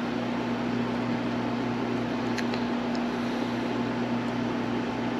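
Steady electrical hum with an even background rush, like room machinery running, with a few faint small clicks about halfway through.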